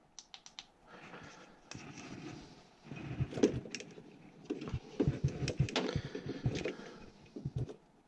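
Handling noise from a furnace draft pressure switch and its rubber hose being worked by hand: a few quick clicks near the start, then rustling and scraping with clusters of knocks and clicks through the middle.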